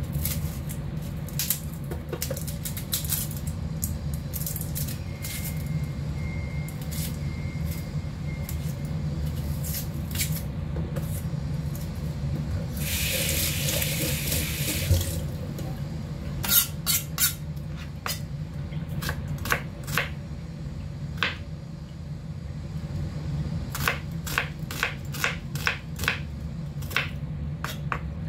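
Kitchen knife striking a cutting board as a red onion is diced: irregular sharp taps, coming quicker and more regularly in the second half. A kitchen tap runs for about two seconds near the middle, over a steady low hum.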